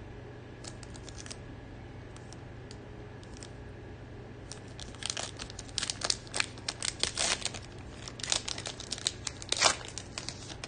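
A Panini NBA Hoops Premium Stock trading-card pack's wrapper being torn open by hand. After a few faint ticks, it crinkles in a dense run of sharp crackles from about halfway in to near the end.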